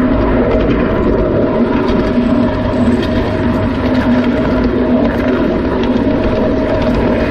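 Wheels of an unpowered runaway car rolling along miniature railway track: a steady, loud rumble with a constant hum.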